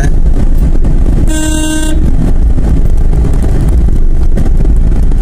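A vehicle horn sounds once, a single steady note lasting about half a second, a little over a second in. Under it runs the continuous low rumble of a vehicle moving along the road.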